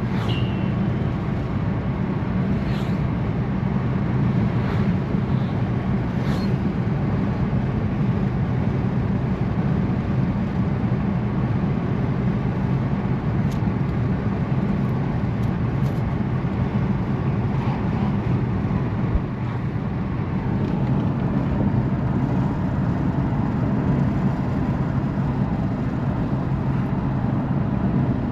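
A car driving along a road: steady engine and road noise.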